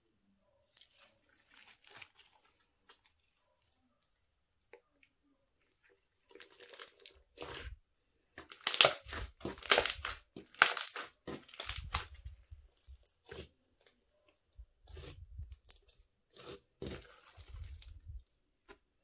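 Sequin-filled glitter slime being kneaded and squeezed by hand: sticky crackles and pops, faint at first, then louder and denser a little past the middle, with a few more squeezes near the end.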